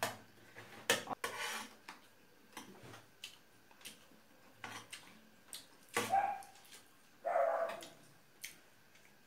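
Spoons clinking and scraping on metal plates as people eat rice, in scattered sharp clicks, with a few short vocal sounds in between.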